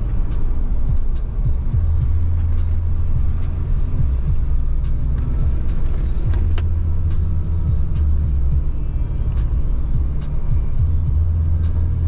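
Car driving along a road: a steady low engine and road rumble, with many small knocks and rattles throughout.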